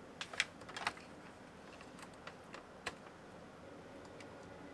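Light clicks and taps of hard plastic toy parts being handled: a quick cluster in the first second, then a few single clicks spaced out.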